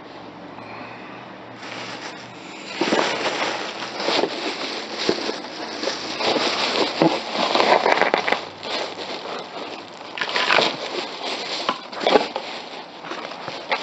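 Plastic bag crinkling and rustling close up as it is handled and pulled over a cardboard box, in irregular spells of crackling that start a few seconds in.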